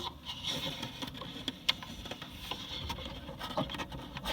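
Irregular small clicks, knocks and light rubbing from hands working on the parts of a chiming clock, with no steady rhythm.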